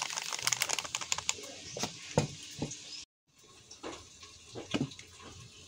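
Plastic spice packet crinkling and rustling as cumin powder is shaken into a steel mixer jar, with a few light knocks against the jar. After a brief dropout, only a few faint clicks of the jar's plastic lid being handled.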